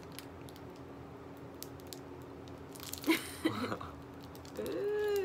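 A person eating, with small crunches and chewing sounds and a louder cluster of bites about three seconds in. A short hummed voice sound with a gliding pitch comes near the end.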